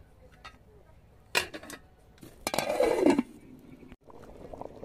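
Metal ladle and pots clinking and clattering: a sharp clink about a second and a half in, then a louder scraping clatter lasting under a second around three seconds in. Near the end a pot of stew starts to be heard bubbling softly at the boil.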